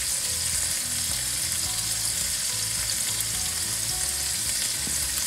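Marinated chicken thighs and drumsticks sizzling steadily in a hot pan over a medium-high flame, with honey just drizzled over the pieces.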